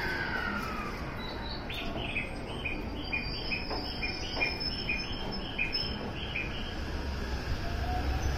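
E353 series limited-express train pulling in: its motor whine falls in pitch and fades about a second in, and the low rumble of the train rolling in grows near the end. In between, a run of short high chirps repeats about three times a second for several seconds.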